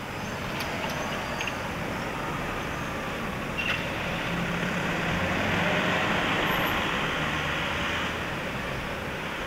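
Street traffic noise, with a motor vehicle's engine swelling as it passes, loudest from about four to eight seconds in.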